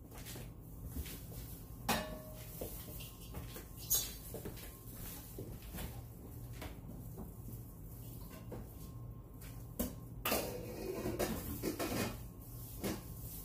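Kitchen clatter: scattered knocks and clinks of dishes and pots being handled, with a busier run of them about ten seconds in, over a low steady hum.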